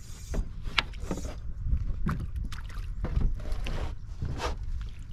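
Irregular knocks and clatter of handling gear aboard a small fishing boat, over a steady low rumble.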